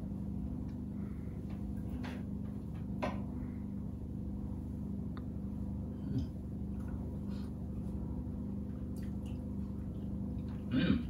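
Steady low hum, with a few faint clicks of a knife and fork on a wooden chopping board.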